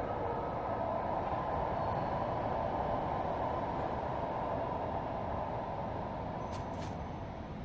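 Steady rushing background noise with no speech, with two faint short clicks near the end.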